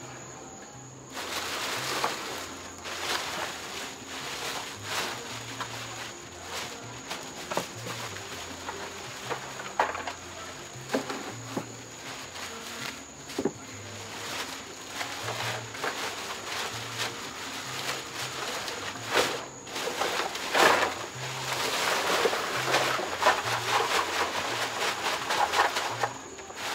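Plastic garbage bags rustling and crinkling as gloved hands sort through food scraps, with irregular crackles throughout and a busier, louder stretch in the last several seconds as a bag is lifted and shaken out. A steady high cricket trill runs underneath.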